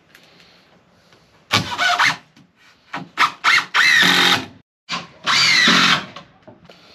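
Cordless drill driving screws into wooden framing boards: one short run about a second and a half in, a few quick blips, then two longer runs, the motor's whine rising in pitch as it spins up.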